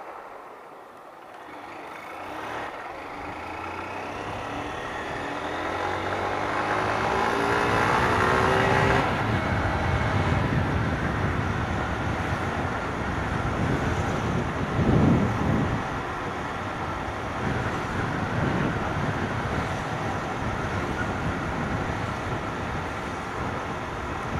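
Honda CG 160 Start motorcycle's single-cylinder engine pulling away while ridden, its pitch rising over several seconds, then running steadily at speed with wind and road noise. There is a brief louder surge about fifteen seconds in.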